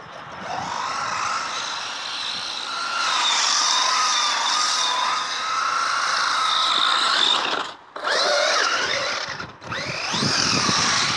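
Brushless electric motor and drivetrain of a Strada XT EVO RC truggy whining as it is driven hard in snow, the pitch rising and falling with the throttle. The whine cuts out briefly twice, about eight and nine and a half seconds in, when the throttle is let off.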